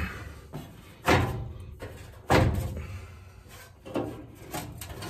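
Sheet-metal knocks and clunks from a furnace blower motor assembly being pulled out along its rails. There are two loud knocks about a second and two and a half seconds in, then a few lighter ones.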